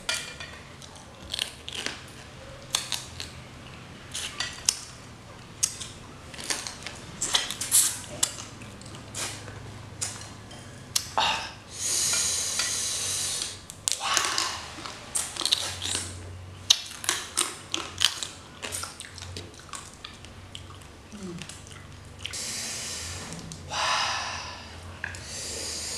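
Raw spicy crab being eaten by hand: crab shells cracking and being pulled apart, with wet chewing and sucking clicks. Twice, about halfway through and near the end, a long hissing breath drawn in through an open mouth, the kind made to cool a chilli-hot mouth.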